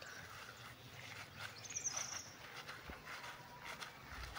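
Faint footsteps of a person walking along a dirt garden path, with a brief high chirp about two seconds in.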